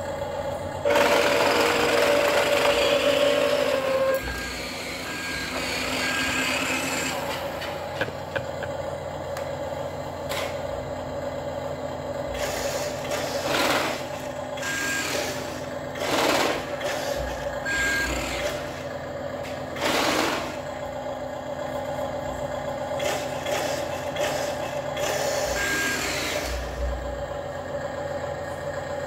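Built-in simulation sound of a Fisca 1/20 scale RC dump truck playing through its small speaker: a running truck engine, with several short hisses like air-brake releases and a few short reversing-style beeps, as the toy drives about.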